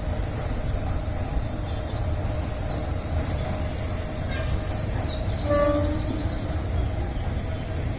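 Train running with a steady low rumble, and a brief horn blast about five and a half seconds in.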